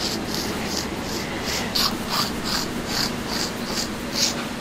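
A small hand blade cutting through a thick sheet of noodle dough in a spiral, making short scratchy strokes about two or three times a second.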